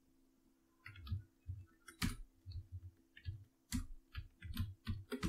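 Computer keyboard keys being pressed: an irregular run of short clicks, each with a low thump, starting about a second in.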